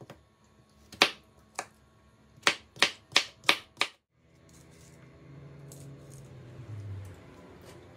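A series of about eight sharp, irregular knocks, two to three a second, over the first four seconds. They stop with an abrupt cut, and quiet background music with held notes comes in.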